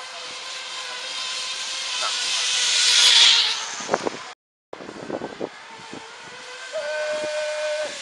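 Zip-line pulley running along a steel cable: a hissing whir with a faint steady whine that grows louder for about three seconds as the rider comes in, then fades. The sound cuts out briefly about four seconds in.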